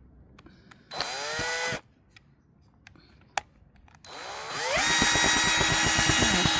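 Power drill backing out old screws: a short burst about a second in that winds down, then from about four seconds in the drill spins up to full speed and runs steadily with a fast rattle under the motor whine.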